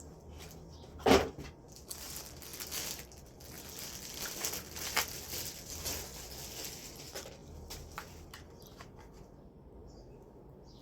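Packaging being handled: crinkling and rustling for several seconds with small clicks, after a single sharp knock about a second in.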